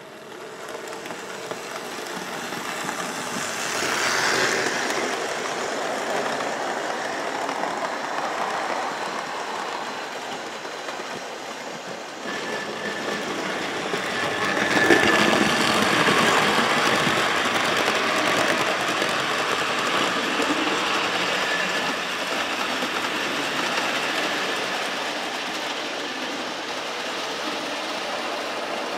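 OO gauge model Britannia locomotives and their coaches running on the layout: electric motors whirring and wheels clicking over the rail joints. The running grows louder over the first few seconds, jumps up about twelve seconds in, is loudest a few seconds later, then stays steady.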